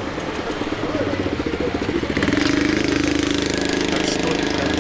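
A motor vehicle's engine running close by, steady with a fast pulse, growing louder about two seconds in.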